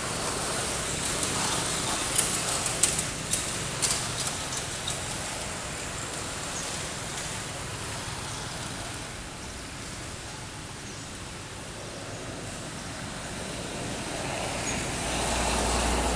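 Steady outdoor background noise, with a quick cluster of sharp clicks about two to four seconds in and a low rumble that swells near the end.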